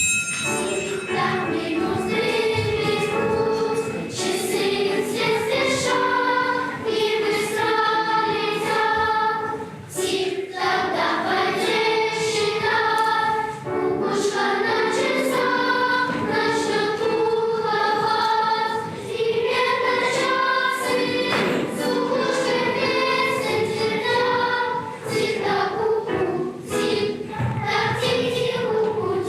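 A choir singing a song with musical accompaniment, held notes moving in steps, in phrases with short breaks between them.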